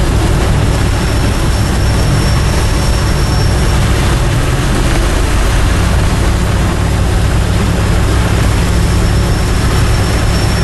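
Dodge Power Wagon's 360 V8 running steadily on wood gas from a gasifier while the truck drives down the road, heard from inside the cab with road and wind noise.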